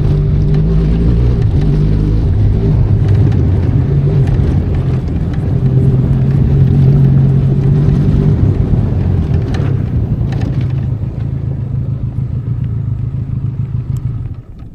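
Benelli Leoncino 500 Trail's parallel-twin engine running under way on an off-road trail, its pitch shifting with the throttle and loudest around the middle. The engine then eases off and falls away sharply near the end.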